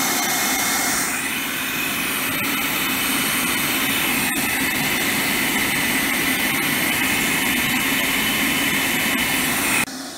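Homemade venturi air blower running: a loud, steady rush of air with a faint high whistle in it, which cuts off suddenly just before the end.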